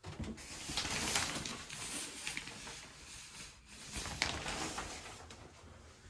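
Shower curtain being pulled open, with the fabric rustling and its rings scraping along the rod. It starts abruptly, fades after a few seconds, and a second shorter swish follows about four seconds in.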